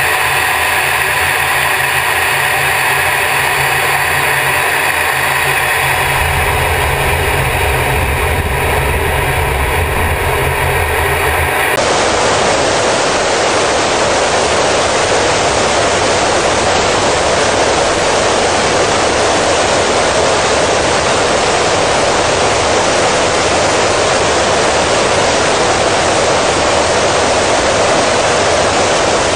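Steady noise inside a fighter jet's cockpit: a hum with several fixed tones. About twelve seconds in it cuts abruptly to a loud, even rush of wind and engine noise on a tanker aircraft's open rear cargo ramp during aerial refuelling.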